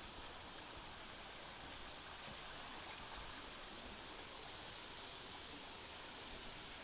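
Faint, steady rush of a small creek flowing over rocks.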